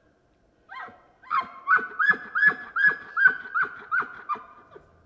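Bull elk calling with an aggressive chuckle: a short rising squeal, then a quick run of about nine rhythmic whistling grunts that ends near the close.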